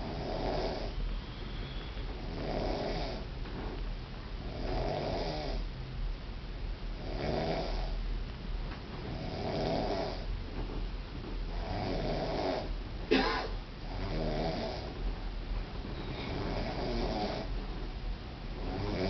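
A woman snoring, one snore roughly every two and a half seconds. About two-thirds of the way through comes one short, sharper and louder sound.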